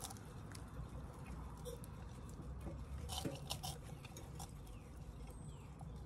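Faint crackling of a wood fire burning in a chimenea, with light clicks and scrapes, a cluster of them about halfway through, as a forked stick works a glass jar out of the fire.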